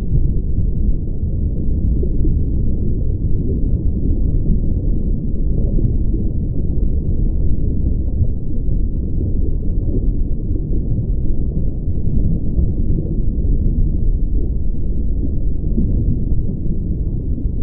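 Steady, loud, muffled low rumble with nothing in the upper range and no distinct tones or knocks.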